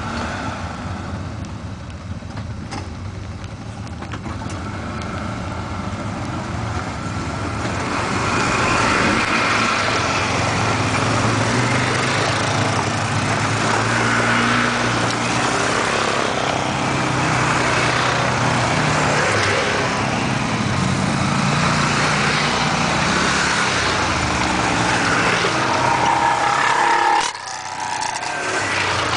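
Engines of a convoy of quad bikes and a side-by-side utility vehicle driving past close by on a dirt track, getting louder about a third of the way in. The sound drops suddenly near the end.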